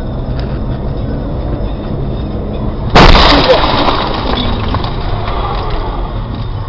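Steady road and engine noise inside a car, broken about three seconds in by a sudden loud crash with breaking glass that dies away over about a second: a vehicle collision.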